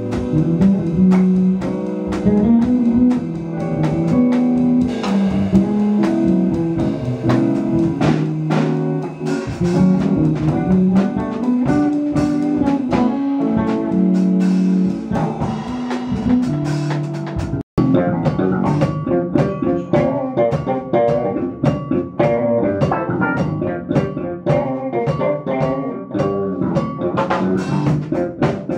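Live jazz-funk band playing: electric guitar, electric bass, electric keyboard and drum kit over a steady beat. The sound drops out for an instant about two-thirds of the way through, and the playing is busier after it.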